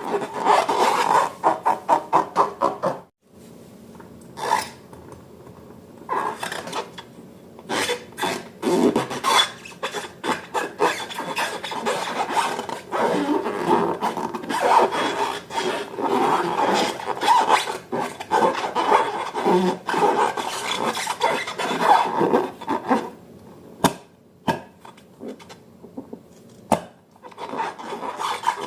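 Slime being mixed by hand, with quick repeated scraping strokes for the first three seconds, then irregular scraping, rubbing and squishing. A few sharp clicks come near the end.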